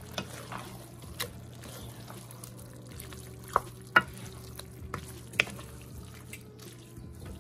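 Wooden spoon stirring tomato sauce into browned ground meat in a large metal pot, with scraping and several sharp knocks of the spoon against the pot, over a low steady hum.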